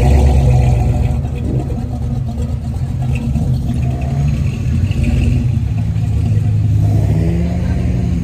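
Classic car engines running as the cars drive past slowly. An exhaust rumble is loudest at the start, and an engine revs up near the end.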